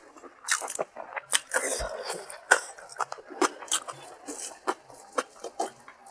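Close-up eating sounds of a person chewing rice and ilish fish curry: irregular wet mouth clicks and smacks, several a second.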